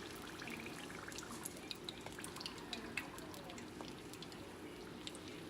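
Hot oil sizzling around a frying taco, with scattered small crackling pops.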